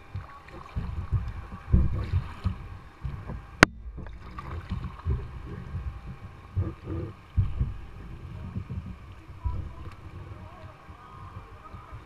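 Water sloshing and lapping against an inflatable kayak's hull as it is paddled along, in uneven low thumps, with one sharp click a little over three and a half seconds in.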